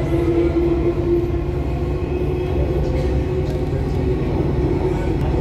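Delhi Metro train running on an elevated track, heard from inside the carriage: a steady low rumble with a steady hum over it.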